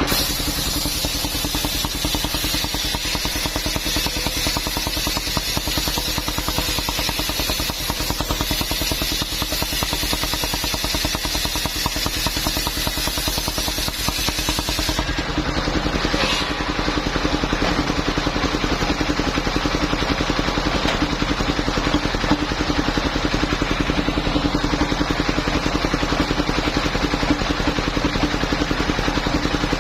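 Engine-driven portable circular sawmill running steadily, its blade cutting through a coconut palm trunk with a bright hiss over the engine's fast, even firing. About halfway through the hiss drops away and the engine runs on with the blade no longer in the wood.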